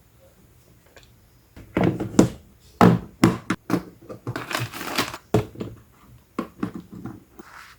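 Packaging being handled during unboxing: irregular crinkling and rustling with sharp clicks and knocks, starting about a second and a half in.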